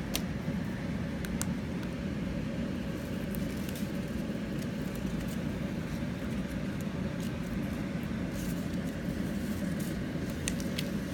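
Pet bird's beak nibbling at laptop keys: scattered small clicks and ticks, a few close together near the end, over a steady low background hum.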